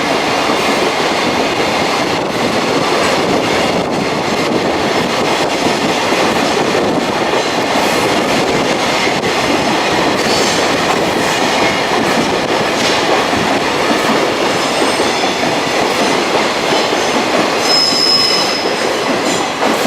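A train running past at close range: steady, loud rumble and rush of wheels on the rails, with a brief high wheel squeal near the end.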